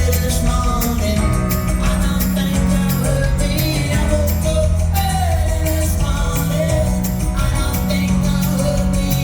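Live band playing a song with a lead vocal over strummed guitar, bass and a steady beat.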